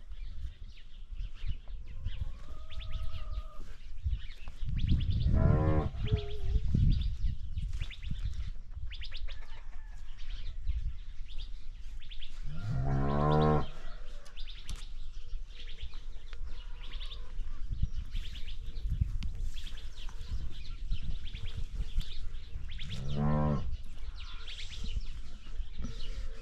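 Cattle mooing: three long moos, several seconds apart, over a steady low rumble.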